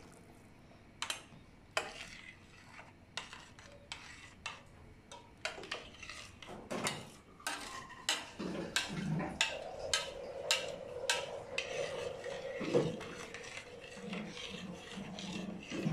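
A metal spoon stirring rice and water in a stainless steel pot, scraping and clinking against the pot's sides and bottom in many sharp, irregular taps.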